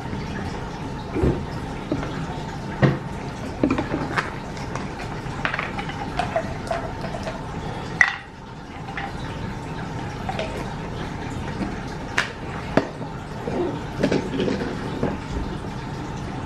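Cutlery clinking and knocking on a dinner plate during a meal, in scattered sharp clicks with the sharpest about halfway through, over a steady low background hum.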